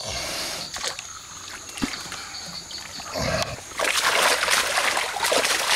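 Rustling and splashing in wet undergrowth, with a few knocks early on; the crackling and splashing swell loud over the last two seconds.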